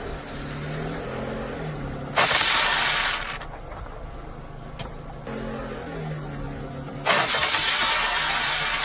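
A car's engine runs low and shifts in pitch, then a sudden loud burst of crunching, crackling noise lasts about a second as the tyre crushes an object. The whole sequence happens twice.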